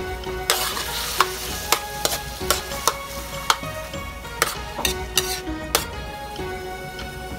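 Metal spatula scraping and clanking against a metal wok as shrimp are stirred in hot, sizzling oil, about a dozen sharp strokes. Background music plays underneath.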